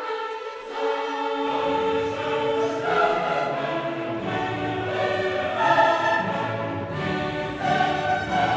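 Background music in a choral, orchestral style, with held sung notes; lower parts come in about a second and a half in.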